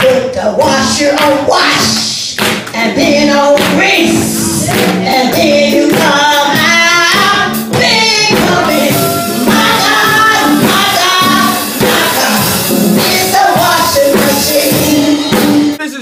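A woman singing a gospel song into a microphone, with instrumental backing.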